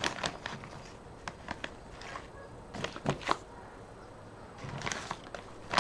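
Fatwood sticks and their plastic bags being handled: scattered light knocks and clicks with a few short rustles.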